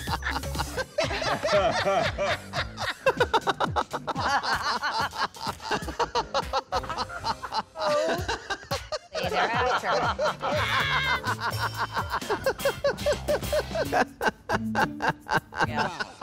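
A man laughing hard in quick runs of cackling 'ha-ha' bursts, several laughing fits spliced one after another, over runway background music.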